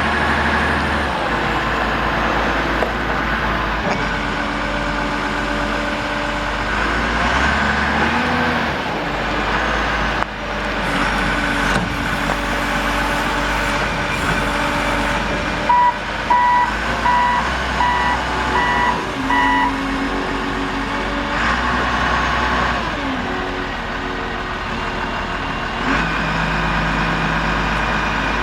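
2004 CAT 924G wheel loader's 138 hp Caterpillar diesel running and working, its engine note shifting as it goes. Just past the middle, the backup alarm beeps about six times while it reverses.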